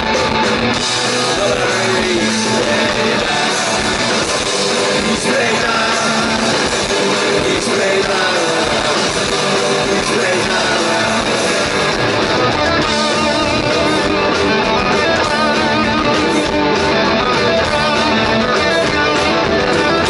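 Punk rock band playing live: electric guitars, bass guitar and drums.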